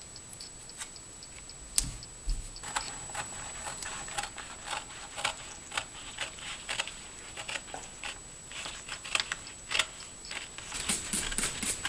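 Scissors snipping through paper, a run of crisp, uneven cuts starting a few seconds in, with the paper rustling between snips.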